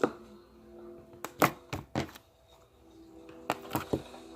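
A series of sharp clicks and snaps, some in quick groups, over faint background music from a television show.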